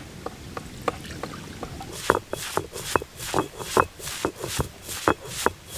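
Stone roller striking and crushing turmeric on a granite grinding slab (ammi), a run of regular knocks about three to four a second. They start as light clicks and become louder, heavier strokes about two seconds in.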